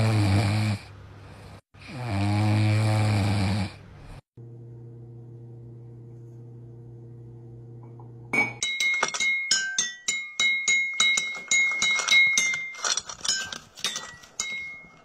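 A dog snoring, two long snores in the first few seconds; then a quiet steady hum for about four seconds. After that a cockatoo strikes a toy xylophone with a mallet, many quick, uneven ringing notes to the end.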